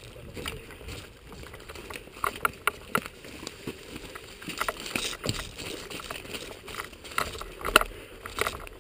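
Footsteps through leaf litter and undergrowth, with the rustle and knock of clothing and gear as the wearer moves, in irregular clicks that come quicker near the end.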